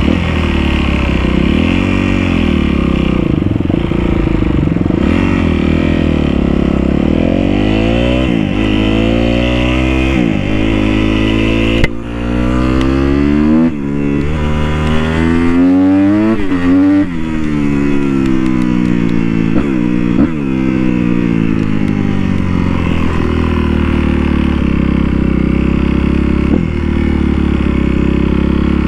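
Motorcycle engine under hard acceleration, revving up and dropping back again and again with throttle and gear changes, most sharply in the middle, then settling into a steadier run near the end. The rider is clutching it up into power wheelies.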